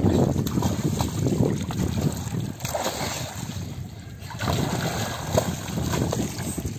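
Floodwater sloshing and splashing, with wind buffeting the microphone in uneven gusts.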